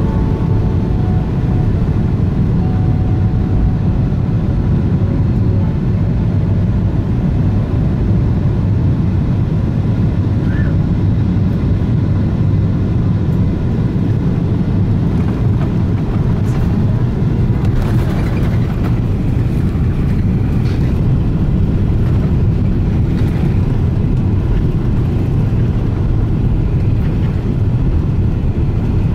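Cabin noise of a Boeing 777-300ER landing: a steady low rumble of its GE90 engines and the airflow, with a few short knocks in the second half as the wheels meet and run along the runway.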